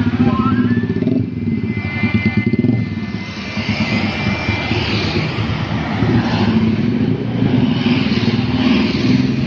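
Small motorcycles and scooters passing close by one after another, their engines running. The traffic noise swells as each bike goes past and dips briefly about three seconds in before more come by.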